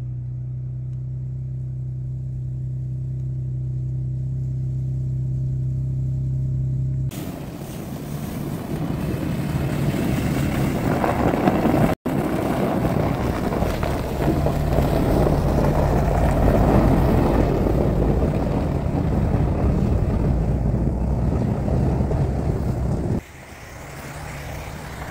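Ford Bronco's 2.7-litre twin-turbo V6 engine running as the SUV moves through snow. A steady low hum for about seven seconds gives way abruptly to a louder, noisier engine sound, which cuts off suddenly near the end.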